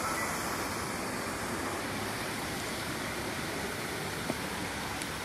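Steady, even rushing noise of outdoor ambience, with one faint click about four seconds in.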